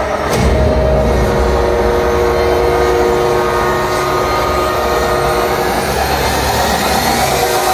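Recorded train sound played over a hall's loudspeakers: a steady rumble with several held tones over it and a faint rising whine.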